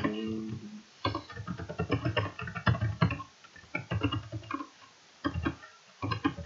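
Computer keyboard typing: quick runs of key clicks with short pauses between bursts.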